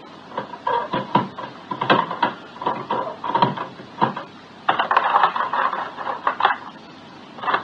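A front door being unlocked and unbolted: a run of metallic clicks, knocks and rattles over several seconds, busiest about five seconds in.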